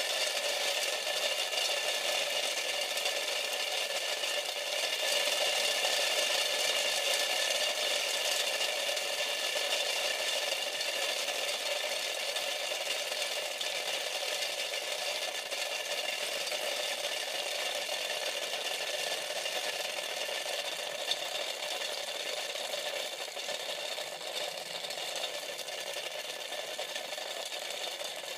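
Conductive-painted styrofoam packing pellets bouncing between the aluminium-taped base and aluminium pie-tin lid of a plastic CD spindle cover under a 20–30 kV static charge: a dense, continuous rattle of light taps against plastic and metal, over a steady hum of a few tones. It fades a little toward the end.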